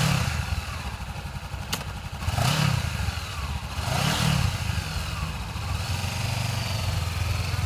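Honda CBR500R's 471 cc parallel-twin engine idling, its throttle blipped to a short rev twice, about two and a half and four seconds in. A single sharp click comes a little before the first rev.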